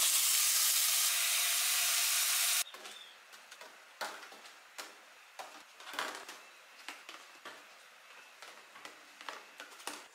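Ground beef sizzling loudly in a hot pan, cutting off abruptly about two and a half seconds in. After that come quieter scattered clicks and scrapes.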